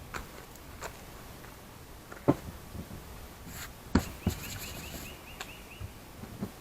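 Wooden beehive frames and box parts knocking and clacking as they are handled, a handful of separate sharp knocks, the two loudest about two and four seconds in.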